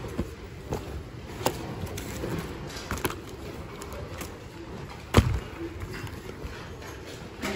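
Goods being rummaged through by hand in a bin: rustling of fabric and plastic with scattered knocks, the loudest a heavy thump about five seconds in.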